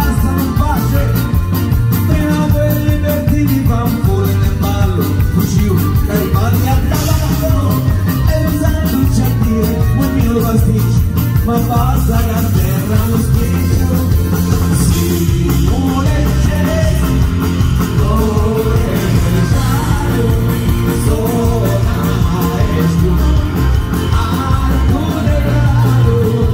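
Live band playing a pizzica tune with a fast, steady beat.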